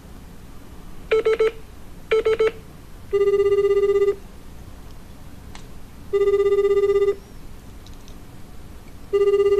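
An outgoing phone call ringing out: two short beeps, then the ringback tone, a steady one-second ring repeating about every three seconds, three times, while the called phone has not yet been answered.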